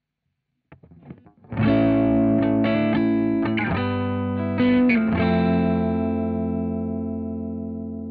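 Electric guitar played through a Victory BD1 amp and recorded direct through a load box: a few faint plucks, then a strummed chord about a second and a half in and a short run of chord changes. The last chord is left ringing and slowly fades.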